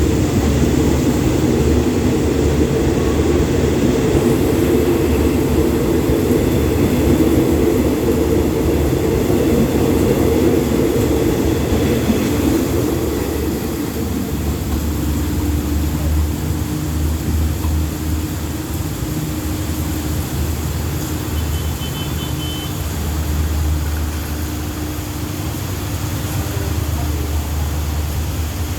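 Passenger train rolling past on the rails, a loud continuous rumble that eases off about twelve seconds in, leaving a steady low rumble.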